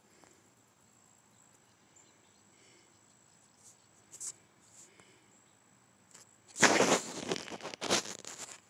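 Faint background hiss with a thin steady high whine, then, about six and a half seconds in, a loud, uneven burst of rustling, scraping noise lasting about two seconds.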